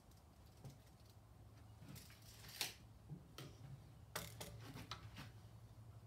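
Faint handling sounds of hand tools: a few sharp clicks and taps as a steel tape measure is retracted and set down, then a plastic-and-metal marking jig is laid against the timber. A faint low hum sits under them.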